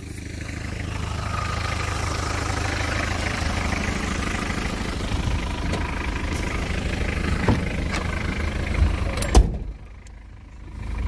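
Vehicle engine idling, then a car door slams shut about nine seconds in, and the sound drops and turns muffled inside the closed cab.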